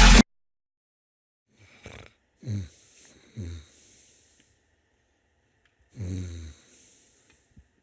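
A person snoring in sleep: two loud snores, about two and a half and six seconds in, with a softer breath or snore between them.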